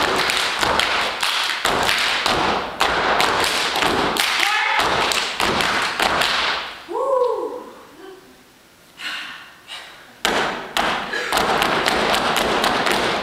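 Step team stomping and clapping in unison, a fast run of foot stomps and hand claps on a stage floor. The beat stops about seven seconds in, with a short shout that rises and falls in pitch, and starts again about three seconds later.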